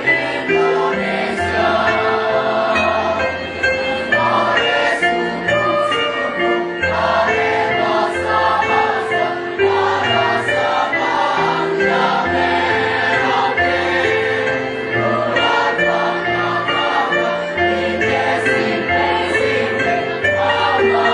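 A choir singing a song.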